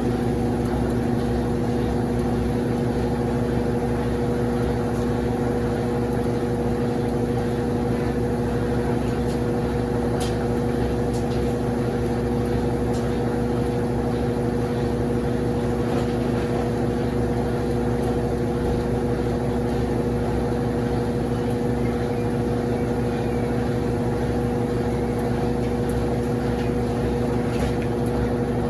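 Consul CWS12 12 kg washing machine running with a steady machine hum and low rumble that comes on abruptly at the start and holds an even pitch.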